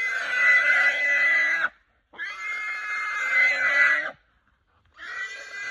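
A feral pig squealing in distress as a pig dog holds it down: long, loud, harsh squeals, two of about two seconds each with a short break between, and a third starting near the end.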